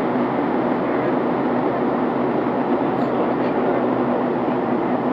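Steady airliner cabin noise: engine and rushing-air roar heard from inside the passenger cabin, even and unbroken.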